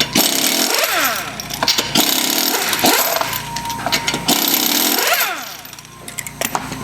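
Pneumatic impact wrench hammering in several long bursts, its pitch sweeping up and down as it spins up and slows between them.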